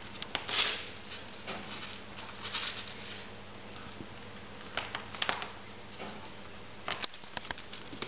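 Five-week-old kittens scrabbling and tussling on a fabric blanket: irregular scratches, rustles and light clicks in short clusters, over a steady low hum.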